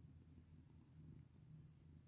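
Domestic cat purring, a faint steady low rumble with a fine pulsing texture, while being stroked.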